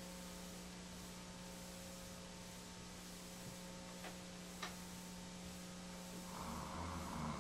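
Steady low electrical hum and hiss of the recording, with two faint ticks about four and four and a half seconds in. A muffled rushing noise swells up near the end.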